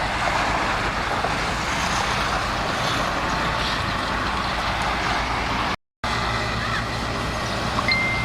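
Bulldozer's diesel engine running steadily under working load, with mechanical clatter mixed in. The sound drops out for a moment about six seconds in.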